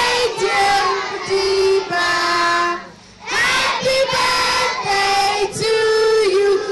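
A large group of children singing together in unison, holding long notes. The singing breaks off briefly about three seconds in, then resumes.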